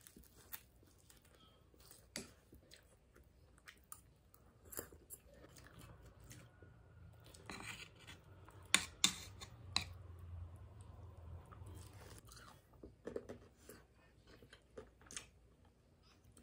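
A person chewing close to the microphone, with scattered sharp crunches from fried vegetable tempura; the loudest crunches come as a pair about nine seconds in.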